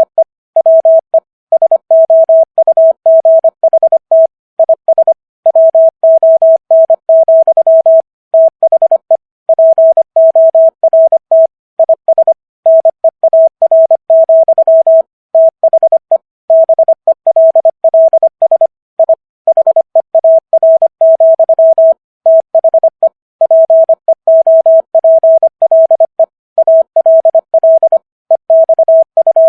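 Morse code sent as a single pure tone, keyed on and off in rapid dots and dashes at 25 words per minute, with short silent gaps between words.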